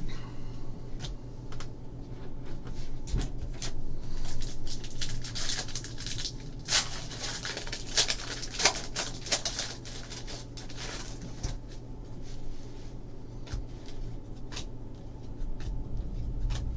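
Foil trading-card pack wrapper crinkling and tearing open, a dense rustle in the middle. It is framed by lighter clicks and rustles of cards being handled and slid against one another.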